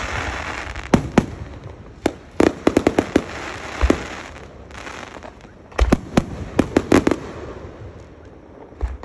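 Aerial fireworks going off: bursts of sharp bangs and crackling in quick clusters over a continuous fizzing hiss, densest a few seconds in and again about two thirds of the way through.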